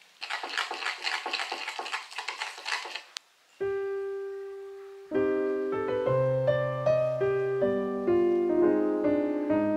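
A fork rapidly beating egg yolks and flour in a glass bowl, a quick scraping patter lasting about three seconds. Then piano music starts: a single held note, joined by chords and a melody about five seconds in.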